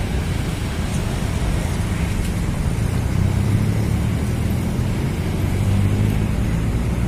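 Steady low rumble of road traffic, with a vehicle engine growing louder around the middle and easing off again.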